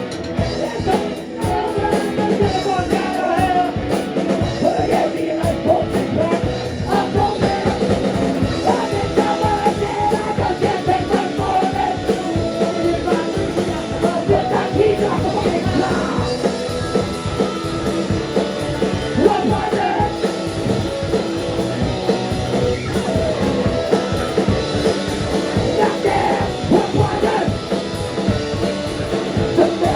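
A rock band playing live, with drums, guitars and a singer.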